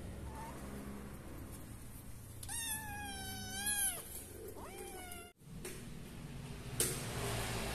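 Kitten meowing: one long, steady meow about two and a half seconds in, falling at its end, then a short rising meow. A sharp click follows near the end.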